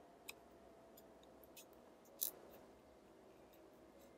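Faint, scattered clicks and ticks of small metal camera parts being handled as a spring and lever are fitted into a Leica M3 shutter speed control mechanism, the loudest a sharp click a little past halfway. A faint steady hum sits underneath.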